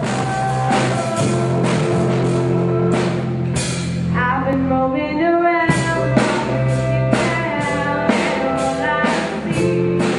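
A teenage girl singing a rock song into a microphone over a band with drums and guitar. The drums break off for about a second in the middle while her voice carries on, then come back in.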